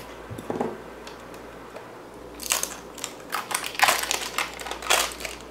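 Clear plastic shrink-wrap being snipped and peeled off a plastic pot, crinkling in a run of sharp crackles from about halfway through.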